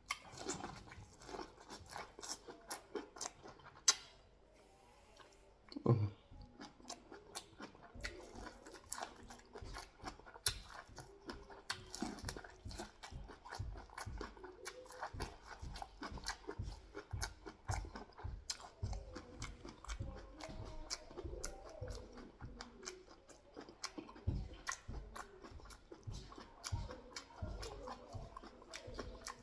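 A person chewing and biting food close to the microphone: wet chewing with small crunches and mouth clicks going on irregularly, a sharp click about four seconds in and a short knock about two seconds later.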